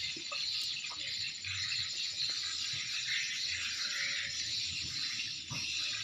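Steady high-pitched background hiss with a thin, even high tone running through it. A few faint clicks come from fingers handling a small metal fishing lure.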